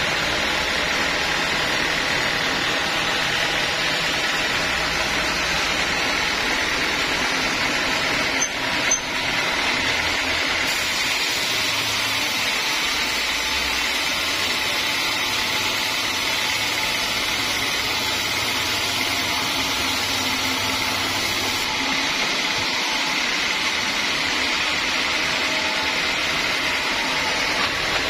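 Sawmill saw machinery running steadily, a constant mechanical din with little change, broken by a brief knock about eight and a half seconds in.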